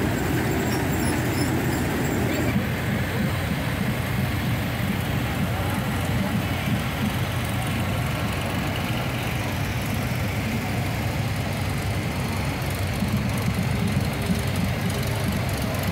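Engines of several vintage Farmall tractors running steadily at low speed as they pass one after another.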